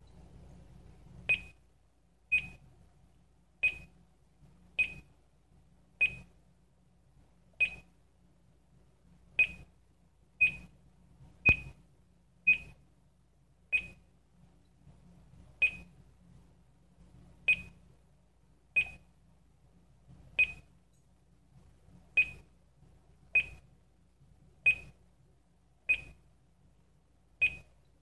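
GE Simon XT alarm control panel giving a short, high beep for each button press, about twenty beeps at uneven intervals of roughly a second, as its menus are stepped through to change the access codes.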